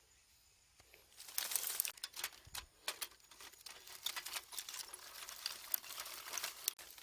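Crinkling and crackling of packaging being handled, starting about a second in as a dense run of sharp crackles.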